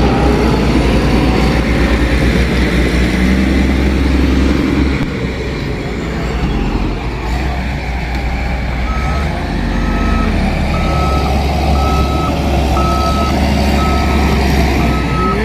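Diesel engine of heavy construction machinery running steadily. From about nine seconds in, a reversing alarm beeps at one pitch in an even rhythm.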